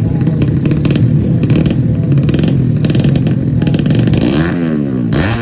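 Tuned 130cc four-stroke underbone motorcycle engines revving hard with a rapid crackle from the exhaust. From about four seconds in, the engine pitch sweeps up and down repeatedly, as the throttle is blipped.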